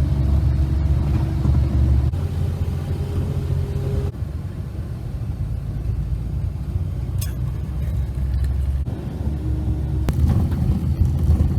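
Low, steady rumble of a vehicle on the move, with a faint hum above it; it starts abruptly.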